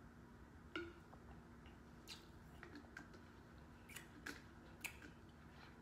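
Near silence with a handful of faint mouth clicks and swallowing sounds as a person drinks from a bottle and then chews.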